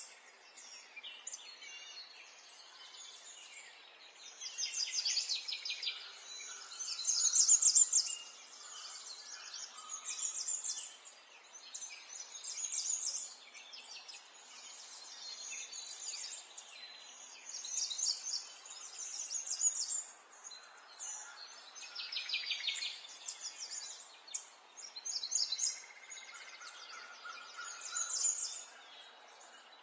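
Birds singing, with short bursts of rapid trills and chirps every couple of seconds over a faint steady background hiss.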